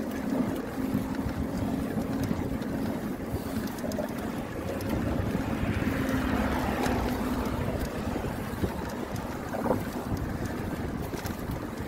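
Wind rushing and buffeting over the microphone of a rider pedalling a bicycle at speed, with a steady low hum underneath that swells briefly about two-thirds of the way through.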